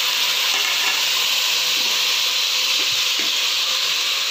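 Fried chicken and pork chop pieces sizzling steadily in hot oil with sautéed garlic, onion and green bell pepper in a stainless steel pot.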